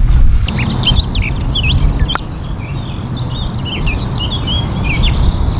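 Many small birds chirping and singing over a low, steady wind rumble on the microphone, with a single short click about two seconds in.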